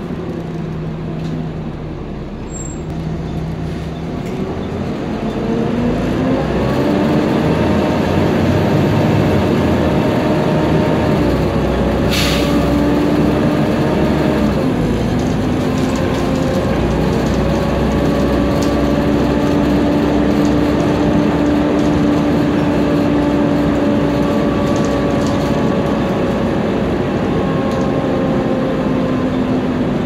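Volvo B7TL double-decker bus's diesel engine and ZF gearbox, heard from inside the passenger saloon. The bus accelerates, and a loud, whining, hoover-like engine note rises in pitch and grows louder about five seconds in. The note then holds steady, dips once midway as the gearbox changes up, and climbs again as the bus keeps pulling.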